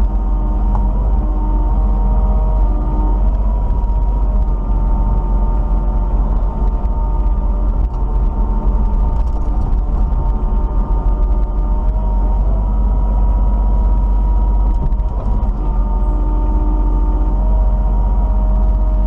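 Kubota KX91 mini excavator's diesel engine running steadily, with a whining tone that comes and goes as the hydraulics work the arm.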